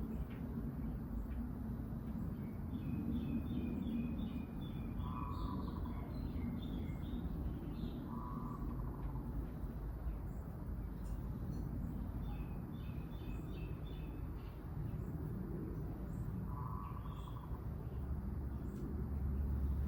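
Small garden birds calling: two quick runs of high chirps, and a shorter, lower call repeated about four times, over a steady low background rumble.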